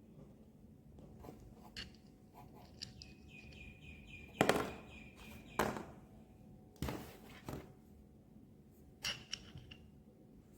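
Handling noises: scattered clicks and knocks, the loudest two about four and a half and five and a half seconds in. Around them runs a high, squeak-like scrape lasting about two seconds.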